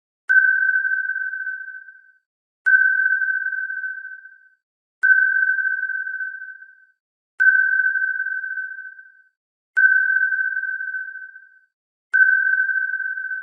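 Submarine sonar ping sound effect: one steady high tone that starts with a sharp click and fades away over about two seconds, repeating about every two and a half seconds, six pings in all.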